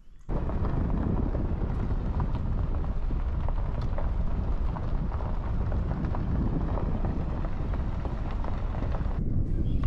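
Wind buffeting the microphone: a steady low rumbling noise that starts abruptly just after the beginning and thins out near the end.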